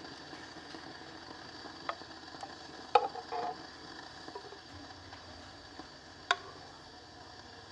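A few light, sharp clicks and knocks over a faint steady background: about five in all, the loudest about three seconds in and another a little after six seconds.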